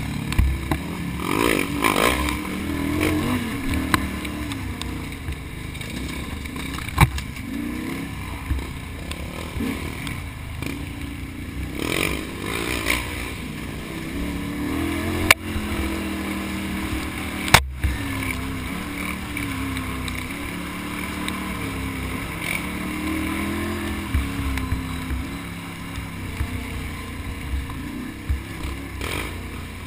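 Can-Am Outlander XXC ATV engine running under constantly changing throttle, its pitch rising and falling as the rider works the trail. A few sharp knocks break in, about 7, 15 and 17 seconds in.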